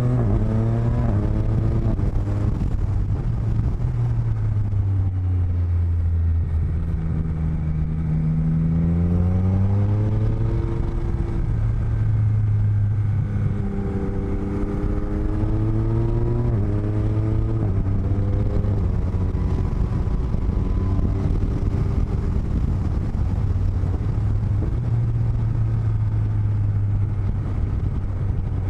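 Motorcycle engine heard through microphones inside the rider's helmet, accelerating several times: the engine note climbs and drops back at each gear change, over a steady low rumble of wind and road noise.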